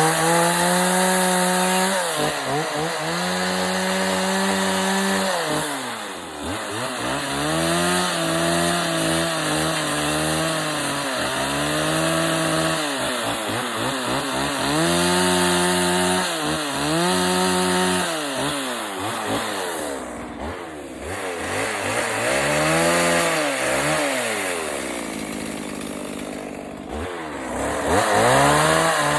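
Stihl 020 chainsaw with a dime-tip carving bar cutting wood in short passes, its engine revving up and falling back to idle over and over as the log is shaped.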